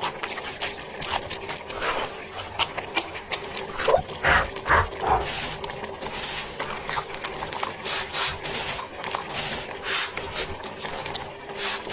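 Close-up eating sounds: chewing and crunching in quick, irregular clicks, with a few short squeaky noises about four seconds in.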